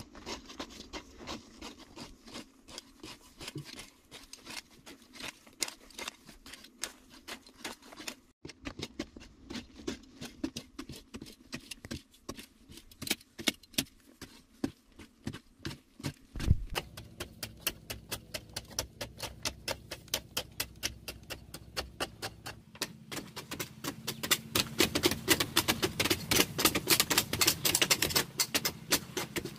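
Hand digging tools chopping and scraping into dry clay soil, a rapid run of knocks and clatters of loosened clods. The strikes grow louder and denser about three-quarters of the way through.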